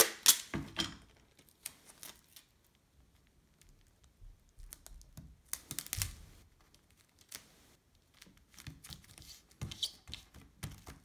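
Clear packing tape being laid and pressed down by hand onto a book's pages: scattered short crinkles and taps, with a louder burst of crackling in the first second.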